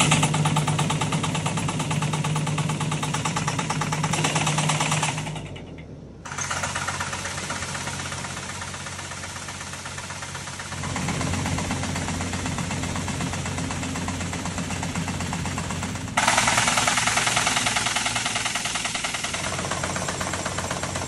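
Tractor running a Kadıoğlu Vibrope rope-type tree shaker: a fast, steady mechanical knocking over the engine hum as the strap shakes a walnut tree to drop its nuts. The sound breaks off for about a second around five seconds in, then resumes, and grows louder and brighter near the end.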